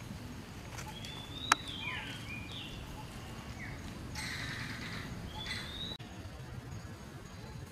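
Several short, high chirping animal calls, some sliding down in pitch, over a steady low background rumble, with one sharp click about one and a half seconds in.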